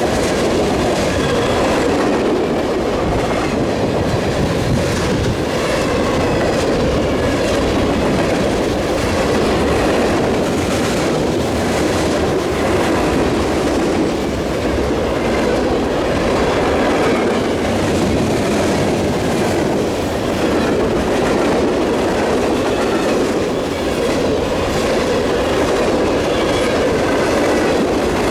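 Freight train cars rolling past at close range: a steady loud rumble of wheels on rail, with rhythmic clicking over the rail joints and a faint high wheel squeal now and then.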